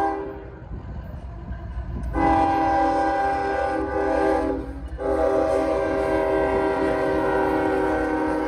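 Freight locomotive's multi-chime air horn sounding a chord: the end of one blast right at the start, then a long blast about two seconds in, and after a brief gap another long blast that carries on to the end. Under it the low rumble of the passing train.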